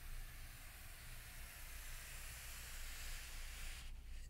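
Fine sand hissing as a comb-like rake is dragged through it in one long continuous stroke, growing a little louder and brighter, then stopping suddenly near the end.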